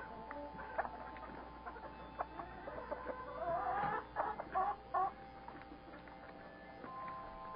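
Hens clucking: a drawn-out call rising in pitch a few seconds in, then two short clucks close together.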